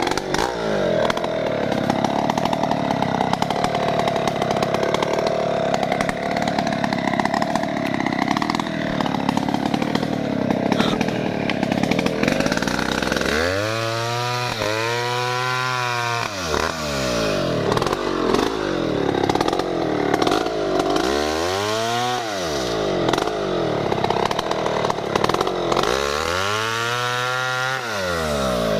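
Stihl MS070 two-stroke chainsaw running at high revs and cutting through a felled log. Its pitch rises and falls three times in the second half.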